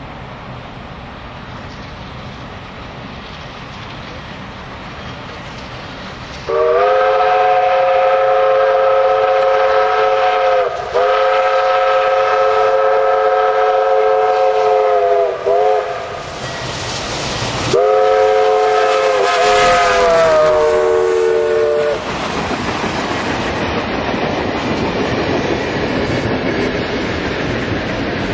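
A steam locomotive's multi-tone chime whistle sounds the grade-crossing signal: two long blasts, a short one, then a long one, each sagging in pitch as it cuts off. The train then passes close by with a heavy, steady rush of exhaust and running noise.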